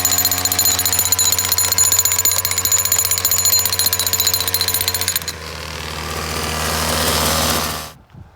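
Gas-powered jackhammer driving a steel grounding rod into the ground, a rapid, even pounding. About five seconds in the hammering stops and the engine runs on alone, getting louder, then dies away near the end.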